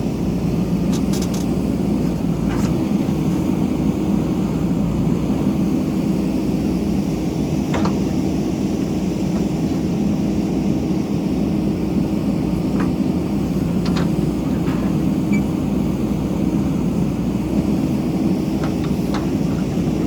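JCB backhoe loader's diesel engine running steadily, with a few sharp knocks scattered through.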